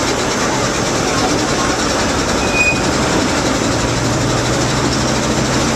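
Steady rumble of a slow train ride behind a class 03 diesel shunter, wheels and running gear on the track, with a low steady hum under it. A brief faint squeal comes about two and a half seconds in.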